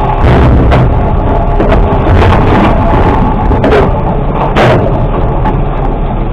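Mack LR garbage truck with a Labrie automated side-loading arm running under steady low engine and hydraulic rumble. A series of sharp bangs and clatters comes as the arm tips a cart into the steel hopper, with the loudest bang a little past halfway through.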